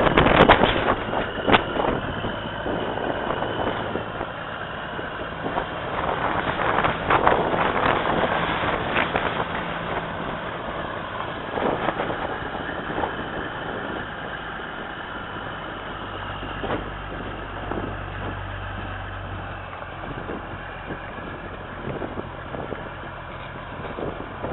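Caterpillar 3406 inline-six turbo diesel of a Peterbilt 379 semi idling steadily, with bursts of noise on the microphone near the start and again about six to nine seconds in.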